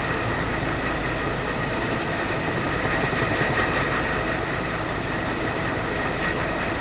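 Jet engine running steadily, a constant rush with a high, even whine.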